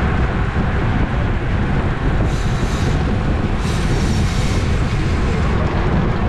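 Wind buffeting the microphone of a racing cyclist's camera at speed, a steady low rumble, with two brief higher buzzing stretches about two and three and a half seconds in.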